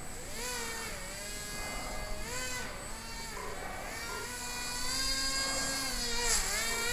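Small homemade airboat's motor and propeller whining, its pitch swooping down and back up several times as the throttle is worked, then holding higher near the end.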